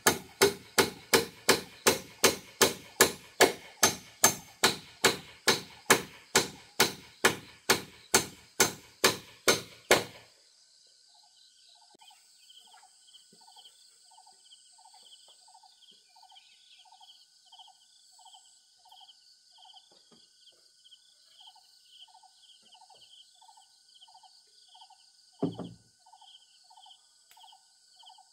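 Hammer strikes on a log cabin's wooden pole frame, a steady run of about two or three blows a second that stops about ten seconds in. After that, a faint animal call repeats about twice a second, and a single thump comes near the end.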